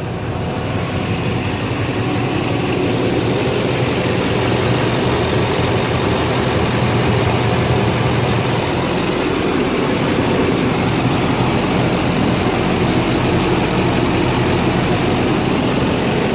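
Duramax 6.6 L V8 turbodiesel running steadily after a new CP3 high-pressure fuel pump is fitted, growing slightly louder about three seconds in. It purrs, running just like it's supposed to.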